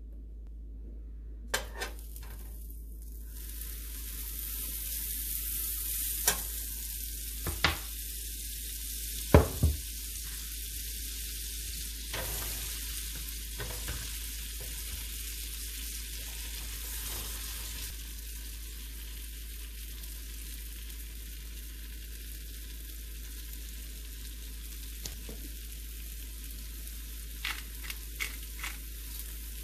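Butter and sliced mushrooms sizzling steadily in a nonstick frying pan, the sizzle starting about a second and a half in. A few sharp knocks sound in the first ten seconds, and a quick run of clicks near the end.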